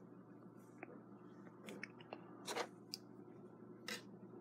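Faint, scattered clicks and light scrapes of small metal clock parts as fingers work a Westclox Big Ben alarm clock movement, seating its balance wheel between the plates.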